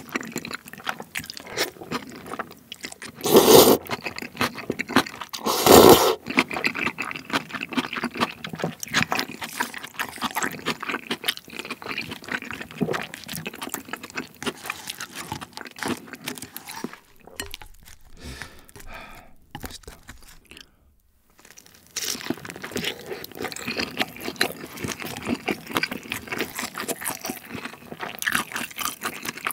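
Close-miked mouth sounds of eating tteokbokki in red sauce: two loud slurps a few seconds in, then steady wet chewing with crunching, pausing briefly about two-thirds of the way through.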